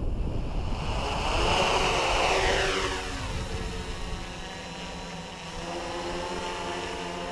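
Small electric quadcopter (Hoverthings Flip Sport FPV) lifting off: its motors and propellers are loudest for the first three seconds, then the pitch falls and settles into a steady hover hum.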